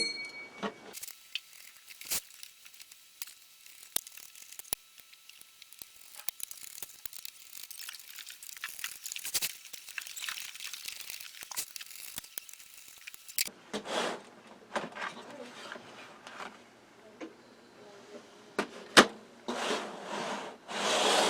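Small screws being taken out of a Dell Inspiron 15 3580 laptop's plastic bottom case with a screwdriver: scattered light clicks, ticks and scraping, with a faint steady high tone through the first part. From a little past the middle it gives way to louder rustling and handling of the plastic parts.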